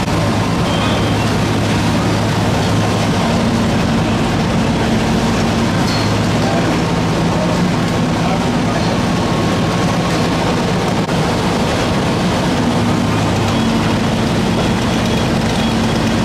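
Fire engine's diesel running steadily at pumping speed to supply the hose lines: a continuous low drone with a constant rushing noise over it.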